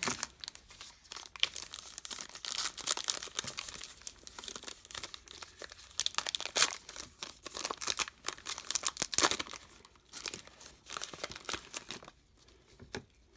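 Plastic wrapping crinkling and tearing as a sealed football card hobby box is unwrapped and opened, in irregular crackles that thin out near the end.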